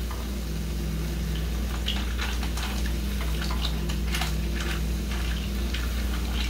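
Mussels being stirred in a hot pan: scattered short clicks and scrapes of shells and a utensil against the pan, over a steady low hum.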